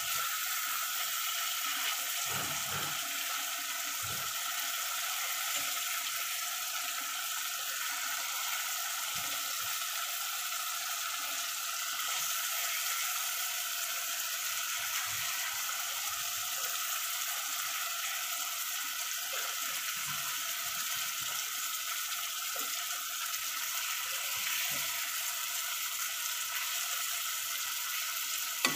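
Hilsa fish steaks frying in oil and spice paste in a metal wok, with a steady sizzle. A metal spatula now and then scrapes and knocks against the pan as the pieces are turned.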